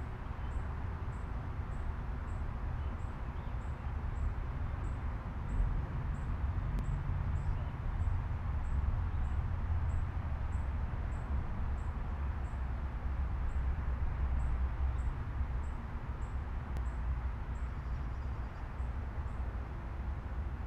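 Outdoor ambience: a steady low rumble, with a faint high-pitched chirp repeating evenly a little under twice a second.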